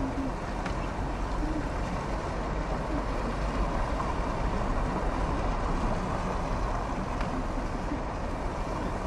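Blizzard wind blowing across the microphone: a steady noise with a heavy low rumble.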